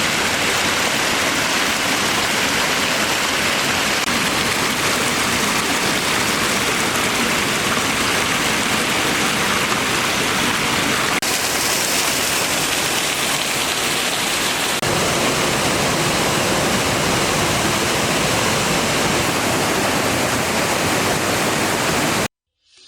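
Waterfall: a steady, loud rush of falling water that shifts slightly twice and cuts off abruptly near the end.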